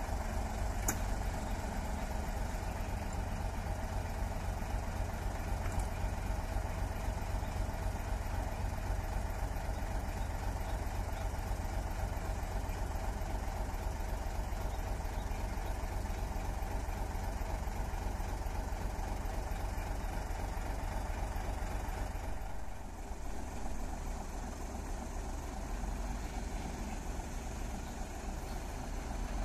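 Heavy truck's diesel engine idling steadily with a low rumble. The sound changes slightly about three quarters of the way through.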